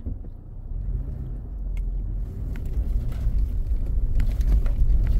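A vehicle driving slowly on a dirt road, heard from inside the cab: a low engine and tyre rumble that grows steadily louder, with a few scattered light clicks.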